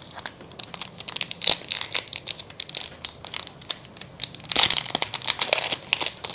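Crinkling and crackling of a foil trading-card booster pack wrapper being handled and pulled open. The crackles are irregular and grow denser and louder about four and a half seconds in.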